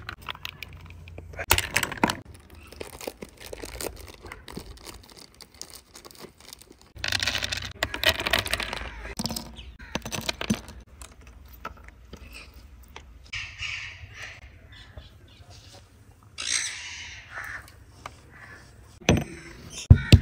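Nuts being handled, with almonds dropping into a stone mortar with a few clicks. Near the end a stone pestle pounds them in a quick run of sharp knocks, about two or three a second. Birds call in the background.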